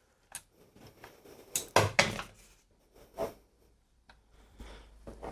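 A few separate metallic clunks and clinks from hand tools and a socket being handled on the engine, the loudest cluster about two seconds in. A low steady hum starts near the end.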